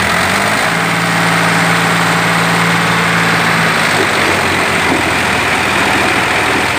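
Two diesel tractor engines running hard and steadily under load as the tractors pull against each other on a chain in a tug-of-war.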